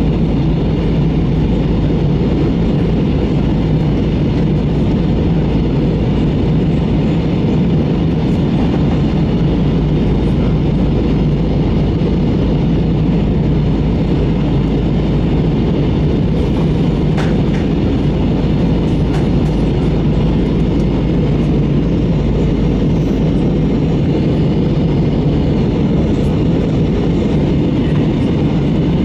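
Steady cabin drone of an Airbus A320 airliner descending for landing: engine and airflow noise heard from inside the cabin, a deep, even rumble.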